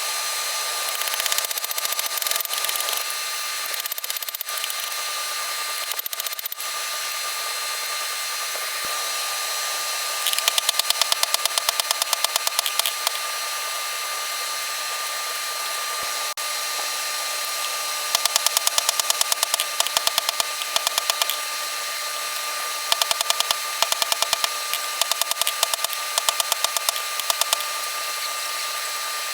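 Rapid runs of hammer blows forging hot steel, many a second, in three spells of a few seconds each, over a steady machine hum.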